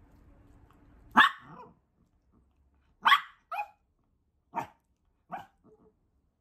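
Small dog barking in about five short, sharp barks spaced a second or so apart, the first about a second in and the loudest.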